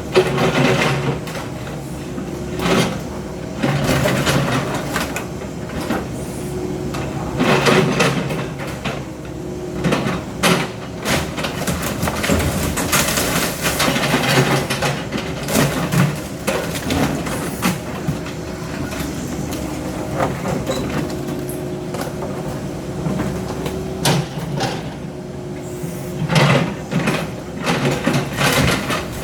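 Demolition machinery running with a steady engine hum while debris crashes, scrapes and clatters irregularly as a building is torn down.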